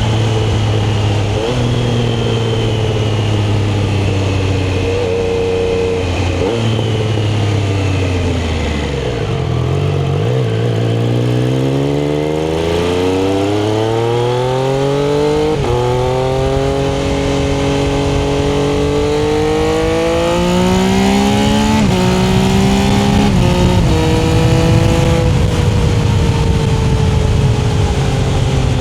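A Triumph's engine running under way. Its pitch sinks low, then climbs steadily as it accelerates, dropping suddenly several times as it changes gear.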